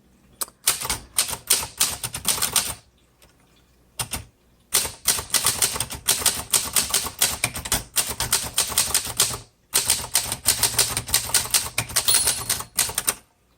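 Keys of a 1958 Cole Steel portable travel typewriter being typed in quick runs of clacking strokes, several a second, with brief pauses about three seconds in and again near ten seconds.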